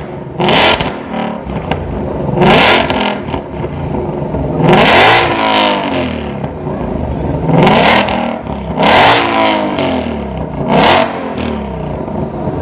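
2020 Shelby GT500's supercharged 5.2-litre V8 blipped six times from idle through its quad exhaust, each rev climbing quickly in pitch and falling back to idle.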